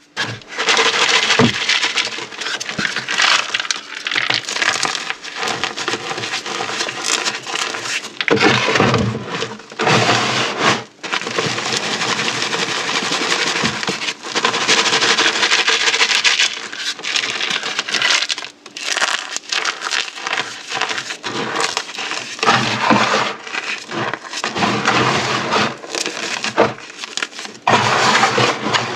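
Chalk and dried orbeez hydrogel beads being crushed: continuous dense crunching and crackling, with a couple of short breaks.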